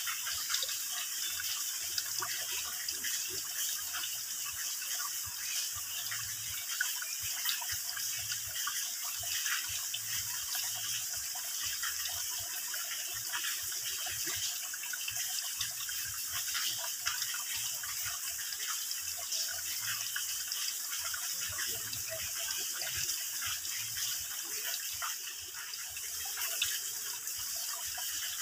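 Water dripping and trickling from a mossy rock overhang into a shallow pool, a steady splashing of many small drops.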